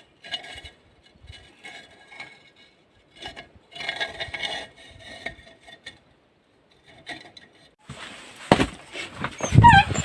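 Metal stove chimney pipe being scraped and rattled in short strokes while soot is cleared from it. A louder clatter follows about eight seconds in, with a brief falling squeak near the end.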